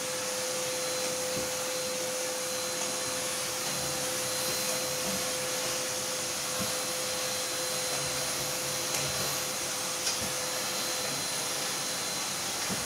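Handheld cleaning machine with a hose nozzle running, a steady rushing of air with a steady hum that stops shortly before the end.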